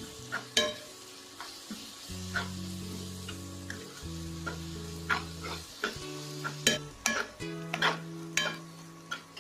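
A spoon stirs sizzling shallots and chilli-turmeric masala paste in a frying pan, with repeated sharp clicks and scrapes of the spoon against the pan. Soft background music with long held notes plays underneath.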